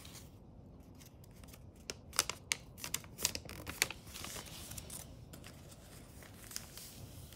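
Thin origami paper (kami) crackling and rustling as it is opened out and squash-folded by hand, with a cluster of sharp crinkles about two to four seconds in.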